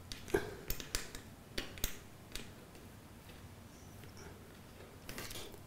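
Faint, scattered light clicks and taps from a hand handling the metal ceiling rail of a sliding-door wardrobe and the tape measure lying along it, mostly in the first two and a half seconds.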